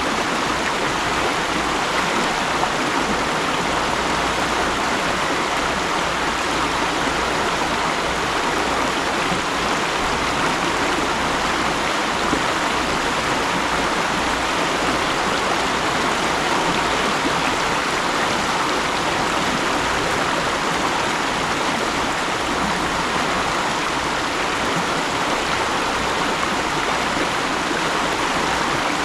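Mountain stream flowing steadily, an even rushing of water over rocks.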